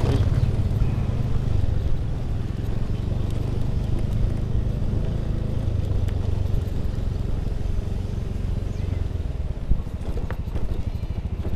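Small motor scooter's engine running steadily while riding over a rough dirt and gravel track, with a sharp knock about ten seconds in.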